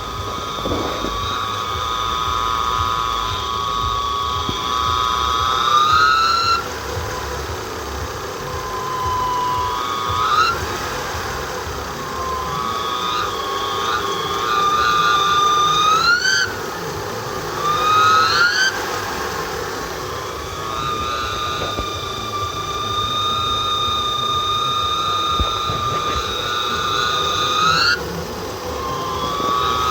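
Mitsubishi 4G63 four-cylinder engine running with a high whistle from its timing belt drive; the whistle rises in pitch each time the engine is revved, several times, and settles back at idle.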